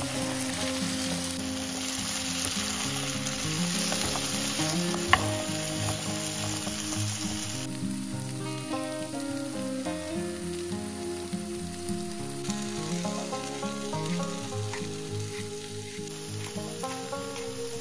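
Food sizzling in oil in a frying pan, with one sharp tap about five seconds in, over quiet background music.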